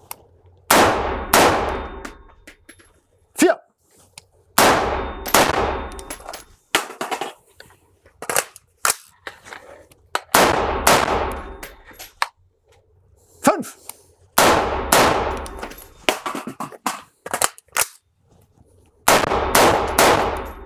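AR-15 rifle gunfire: five short strings of two or three quick shots, about every four to five seconds, each ringing off the walls of the indoor range. Small clicks and clinks fall between the strings.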